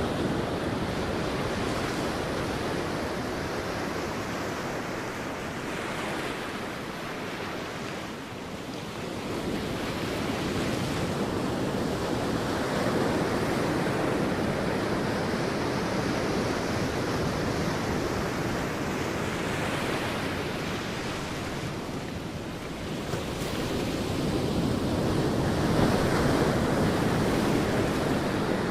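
Sea waves breaking and washing onto a beach, a continuous surf that swells and ebbs, with a slight lull about a third of the way in and a swell near the end.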